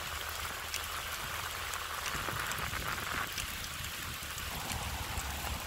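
Rain on a wet road: a steady hiss with many scattered raindrop ticks and a low rumble underneath.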